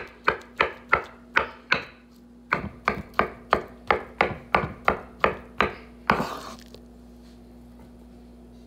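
Chef's knife chopping diced avocado on a wooden cutting board: quick, even chops about three to four a second, with a short pause about two seconds in. A brief louder scrape comes about six seconds in, after which only a faint steady hum remains.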